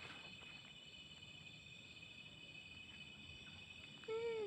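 Insects chirring steadily in several high, unbroken tones. About four seconds in, a short pitched call with an arching pitch cuts in briefly and is the loudest sound.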